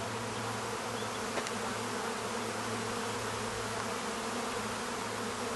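Steady loud buzzing hum of a honey bee swarm, thousands of bees flying around close by as they settle into an empty hive box.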